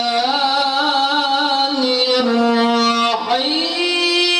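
A male qari reciting the Quran in melodic tilawah style into a microphone, holding long, ornamented notes in a high voice. About three seconds in the line breaks, slides up and settles on a new steady held note.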